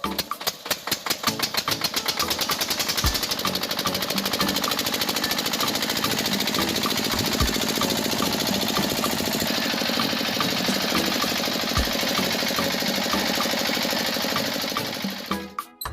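A small engine or motor running with a rapid, even chatter, speeding up over the first couple of seconds and then cutting off abruptly near the end.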